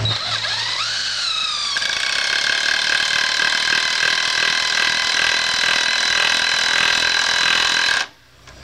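Chicago Electric 18-volt cordless 1/4 in. hex impact driver driving a 5/16 in. by 3 in. lag screw into the edge of a 2x4. The motor spins up with a wavering pitch for about two seconds, then the impact mechanism hammers steadily with a high whine as the screw is driven home, and it stops abruptly about eight seconds in.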